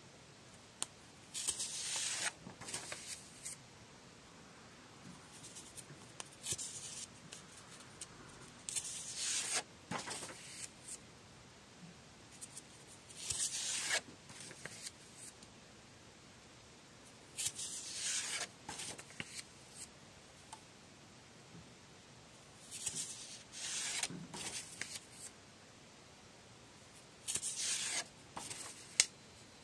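Paper pages being turned and handled, a short rustle every few seconds, about seven in all.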